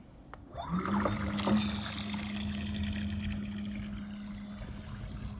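Bait boat's electric propeller motors starting up about three-quarters of a second in, the pitch rising briefly and then holding a steady hum, with the rush of water churned by the propellers as the boat heads out to its point.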